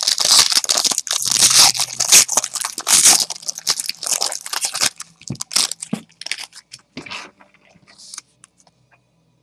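Trading-card pack wrappers crinkling and tearing as packs are opened, a dense crackle for about five seconds that then thins to scattered soft clicks and rustles.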